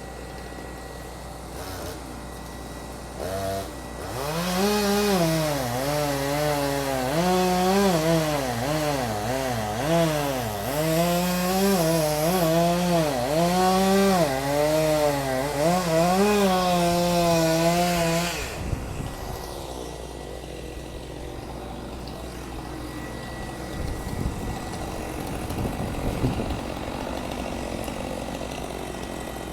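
Chainsaw engine cutting wood, its pitch dipping under load and rising again over and over. It starts about four seconds in and stops about four seconds past the halfway point, leaving quieter background noise.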